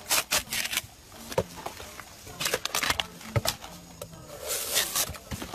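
Giant panda chewing and snapping bamboo: irregular loud cracks and crunches, several a second.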